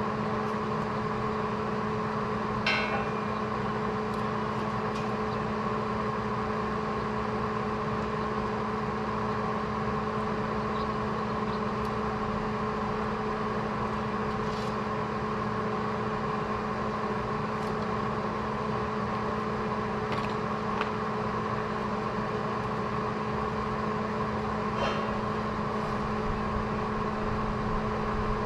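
Welding machine running with a steady electrical hum and fan noise, with a few faint clicks now and then.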